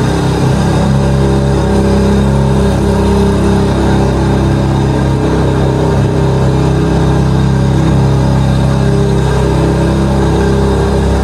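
Ferrari 430 Scuderia's 4.3-litre V8 idling steadily.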